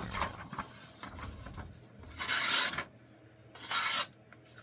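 A knife blade drawn by hand in two rasping strokes, a longer, louder one about two seconds in and a shorter one near the end, with faint scraping before them.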